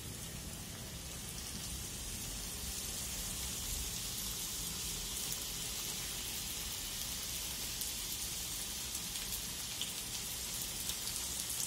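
Potato-filled pastry pockets deep-frying in hot oil: a steady sizzling hiss that grows a little fuller after the first couple of seconds, with scattered small pops near the end.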